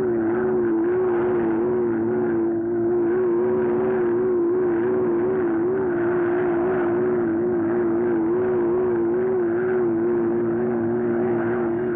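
Engine drone of the flying robot in an old animated film: a steady mechanical hum whose pitch wobbles quickly and regularly, over a lower steady hum.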